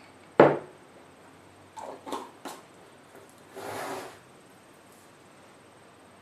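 Eating noises from a BLT sandwich: a sharp knock about half a second in, then three quick crunchy noises around two seconds and a longer one near four seconds.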